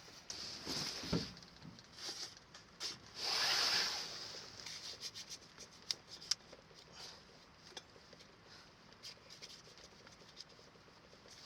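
Handling noises: two rubbing, swishing sounds followed by a series of scattered light clicks and taps.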